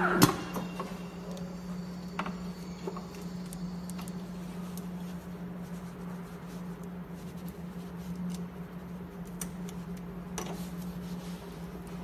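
Wire harness taping machine at rest after a wrapping cycle: a sharp mechanical clack just after the start, then a steady low hum from the powered machine. A few light clicks are scattered through it as the cable is handled in the taping head.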